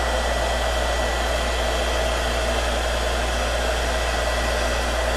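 Electric heat gun running steadily, blowing hot air to warm vinyl wrap so it will stretch.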